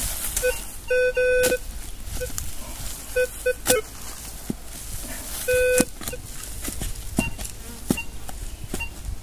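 Minelab Vanquish 540 metal detector giving short, irregular low beeps as it sweeps over a target, a few of them held for about half a second, with several sharp knocks in between.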